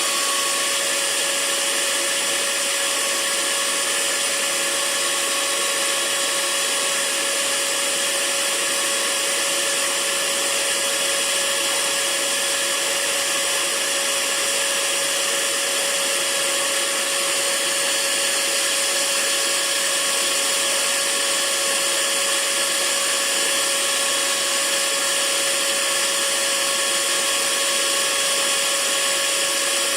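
Electric hair dryer running steadily: a continuous rushing of air with a steady motor hum underneath, used as white noise to lull a baby to sleep.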